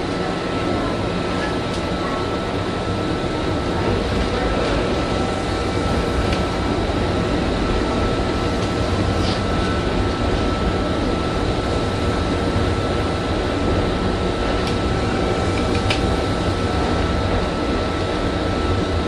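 Interior running sound of a Kintetsu 1420 series VVVF-inverter electric train under way: a steady rumble of wheels on rail, with a faint steady high tone from about a second in and a few light clicks.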